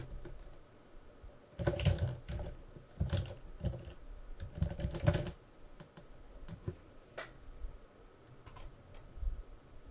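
Computer keyboard being typed on in short runs of quick keystrokes, then a few separate key or button clicks near the end.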